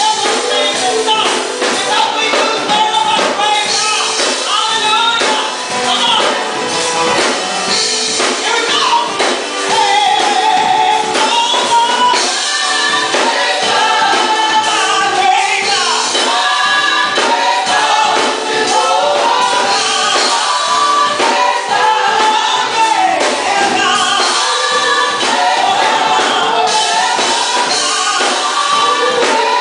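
Gospel choir singing through microphones, a lead singer out front with the choir's voices behind her, with percussion keeping time.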